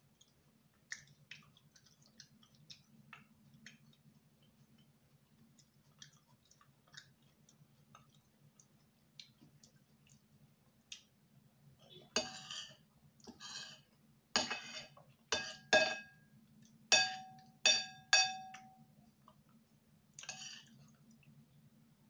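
Faint, scattered mouth clicks of chewing, then from about halfway a run of eight or nine sharp clinks of a utensil against a dish or glass, some ringing briefly.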